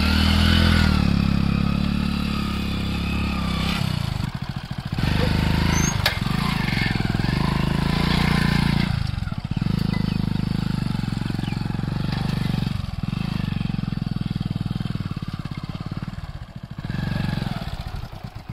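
Motorcycle engine running, its revs easing off and picking up again several times.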